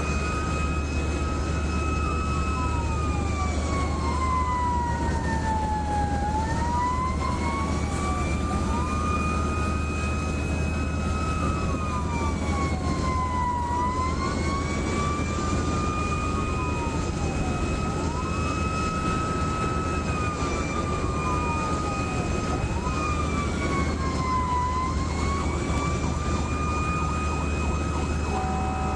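Fire truck siren wailing, its pitch rising and falling slowly about every eight seconds, with a second siren tone sweeping up and down faster over it. A steady low engine drone runs underneath.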